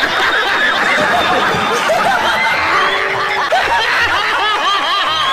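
A crowd of many people laughing heartily together without a break, with a man's loud laughter among them.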